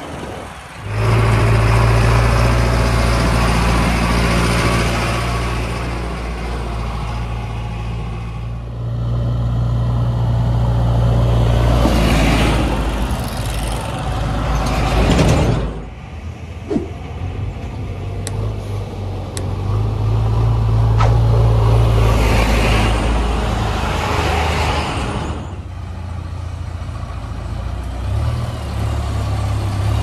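Diesel engine of a JCB backhoe loader running as it drives along the road, with a truck engine also heard. The engine noise swells twice as a vehicle passes close.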